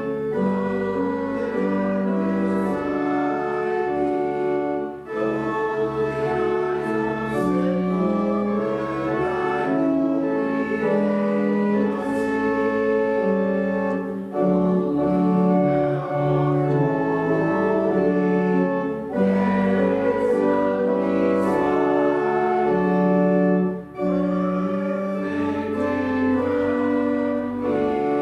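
Church organ playing a hymn in sustained chords, with short breaks between phrases.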